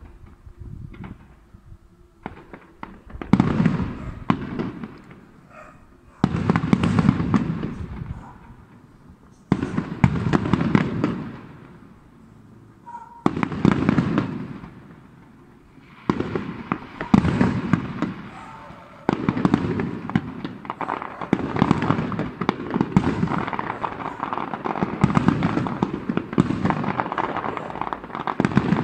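Fireworks display: a few scattered pops, then salvoes of aerial shells going off about every three seconds, each a dense cluster of bangs dying away over a couple of seconds. Over the last third they build into a continuous barrage of bursts.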